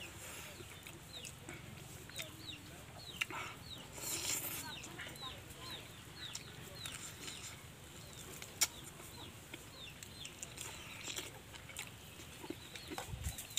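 Birds chirping in the background, a steady run of short, high, falling chirps, mixed with the chewing and mouth sounds of someone eating pork and rice by hand, with a sharp click about eight and a half seconds in.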